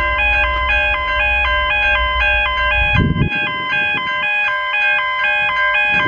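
Background electronic music: a simple synth tune of bright, square-sounding notes stepping up and down in a repeating pattern. Under it is a low rumble that stops after a short bump about three seconds in.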